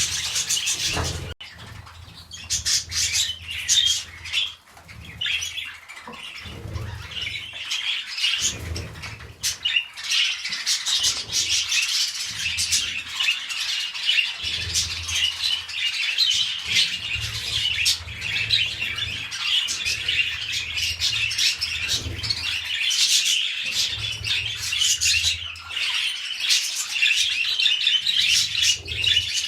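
Budgerigars warbling and chirping without a break: the chatter of a mating pair.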